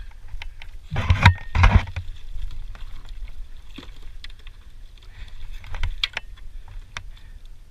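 Two loud splashes about a second in as a big red drum is scooped into a landing net beside a kayak, then smaller splashes and scattered clicks of the net and gear against the kayak.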